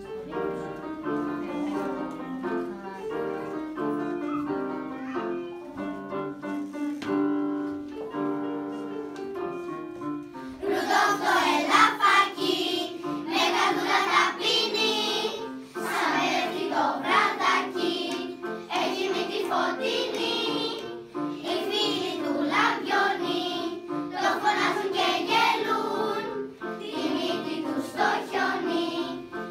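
An electric keyboard plays an introduction of held notes for about ten seconds. Then a children's choir comes in loudly, singing a song in unison with the keyboard accompanying.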